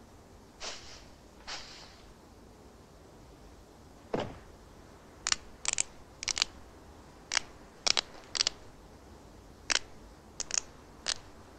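Sparse cartoon sound effects: two soft swishes near the start, a thump about four seconds in, then a scattered run of short, sharp clicks and cracks.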